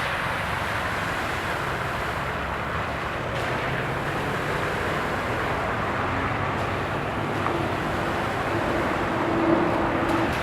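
Steady road noise of traffic through a partly flooded intersection, tyres hissing on the wet road, with an engine hum rising as a vehicle passes close about nine seconds in.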